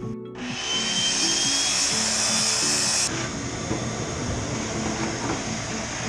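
Background music over the steady rushing hiss of a shop vacuum sucking debris out of a boat hull through its hose; the hiss drops a little about three seconds in.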